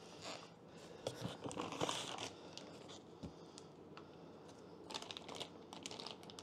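Cardboard and plastic packaging rustling and crinkling as hands rummage inside a cardboard shipping box, in two short spells.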